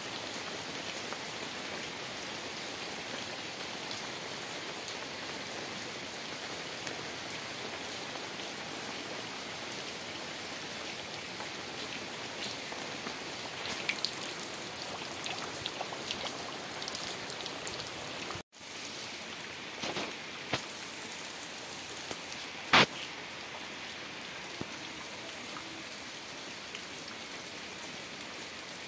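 Heavy rain falling steadily onto floodwater, an even hiss of drops striking the water's surface. A few sharp taps stand out, the loudest about three-quarters through, and the sound cuts out for an instant about two-thirds through.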